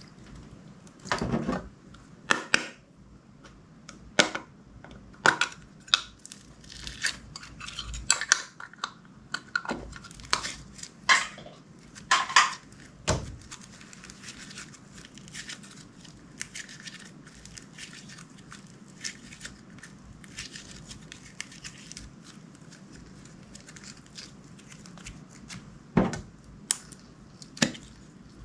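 Clear slime being worked and mixed by hand, giving off irregular sharp pops and crackles. The pops come thick and fast for the first half, then thin out, with a couple of louder ones near the end.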